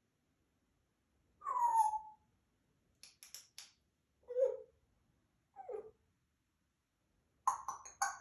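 African grey parrot making a string of separate sounds: a falling whistle-like call about a second and a half in, a few quick clicks, two short low notes, then a rapid run of clicks near the end.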